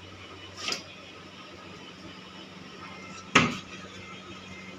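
Hinged access door in wood-look wall panelling, worked by its metal pull handle and swung open: a light knock about a second in, then one loud sharp bang about three seconds in, over a steady low hum.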